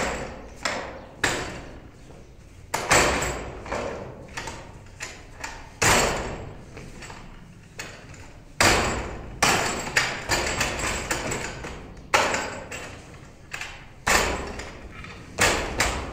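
Wing Tsun wooden dummy (mook yan jong) being worked through its form: an irregular series of sharp wooden knocks and thuds as forearms, palms and shins strike the dummy's wooden arms, trunk and leg. Some strikes come singly, others in quick runs of two or three, each dying away briefly.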